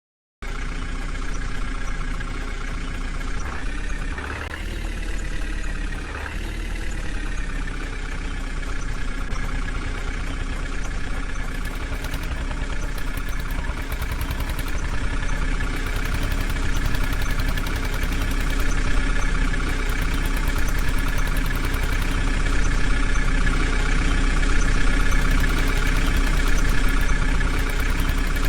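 Heavy diesel engine running steadily, revved up briefly twice, about four and six seconds in, then settling back.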